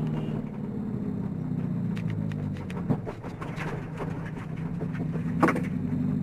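Subaru STI's flat-four engine running steadily; its note weakens and dips in the middle, then comes back. Two sharp knocks stand out, about three seconds in and a louder one near the end.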